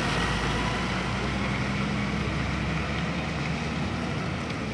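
Concrete mixer truck's diesel engine running as the truck drives away, the sound steadily fading.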